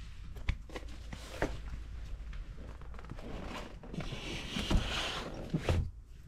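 Hands handling a photo album and then pulling ring binders on a wooden bookshelf: a few sharp knocks and clicks with scraping and rustling, loudest in the second half as the binders are moved.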